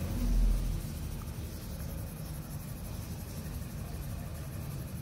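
Pencil scratching on drawing paper as the shading is worked in short strokes, over a low background rumble that is loudest in the first second.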